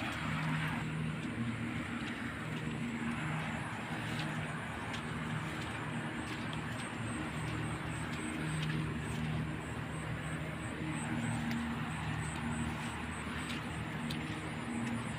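Steady rain falling at night, with a low wavering hum that swells and fades underneath and scattered faint ticks.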